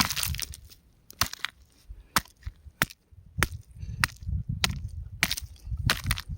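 Rock crumbling and breaking apart: a string of sharp, irregular cracks and snaps, about two a second, with dull low thuds between them.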